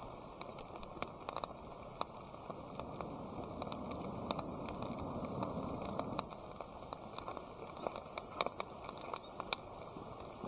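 Faint crackling of a wood fire, with scattered sharp pops over a steady low rushing background.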